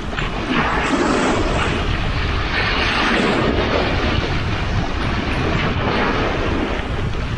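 Sea waves washing on the shore in slow swells, with wind rumbling on the microphone.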